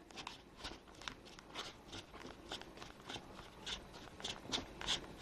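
A person chewing food close to a clip-on microphone: irregular wet mouth smacks and clicks, a few a second, louder near the end.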